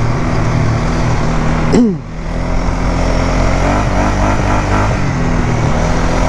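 Polaris Sportsman 570 ATV's single-cylinder engine running while riding, with a quick rev that drops off sharply about two seconds in, then steady running with small changes of throttle.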